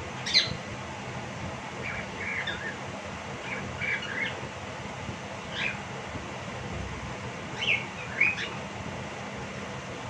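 Cockatiel giving short, sharp chirping calls in scattered bursts, several in quick pairs, the loudest near the start and about eight seconds in: attention-seeking calls from a male left out while the owner plays with the female.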